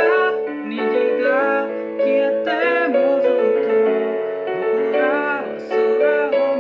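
Music: a piano accompaniment with a sung melody over it, the voice gliding and wavering on held notes.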